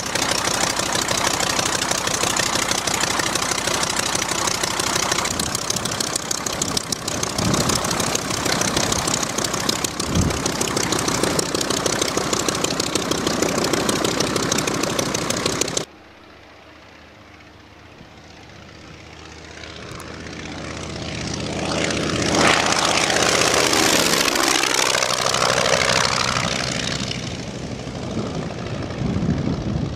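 A 1941 Ryan trainer's five-cylinder Kinner radial engine and propeller running loud and steady close by as it taxis. After a sudden cut about halfway, the engine is heard again in flight, growing louder as the plane passes, its pitch falling as it goes by, then easing off.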